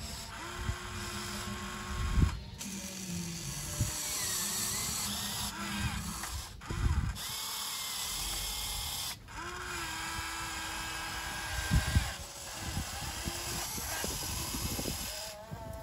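Radio-controlled hydraulic model excavator working: its electric pump whines in held steady tones that slide up in pitch as each movement starts and stop between moves, with a few low thumps as the bucket digs.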